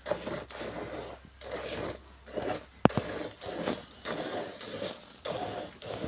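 Hand milking of a desi cow: streams of milk squirting into a pail in a steady rhythm, about two to three squirts a second, each a short rasping hiss. A single sharp click comes about three seconds in.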